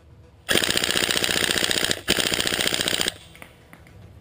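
Tokyo Marui M4 SOPMOD airsoft electric gun (AEG) firing on full auto in two bursts: a rapid, even clatter of shots lasting about a second and a half, a brief break, then about another second.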